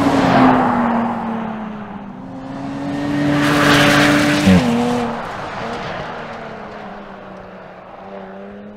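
Jaguar F-Type coupé engine at speed as the car passes close by with a rush of tyre and wind noise. The engine note climbs, drops sharply at a gear change about four and a half seconds in, then settles to a steady drone that fades as the car draws away.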